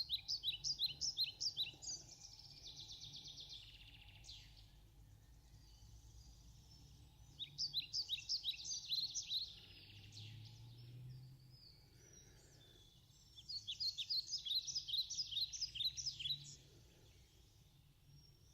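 A songbird singing three bouts of rapid, repeated high chirps, each lasting two to three seconds: one at the start, one about seven seconds in, and one about thirteen seconds in.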